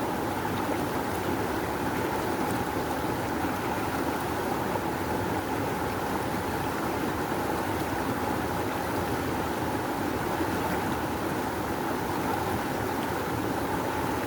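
A river rushing steadily, a dense, even roar of water flow with no breaks.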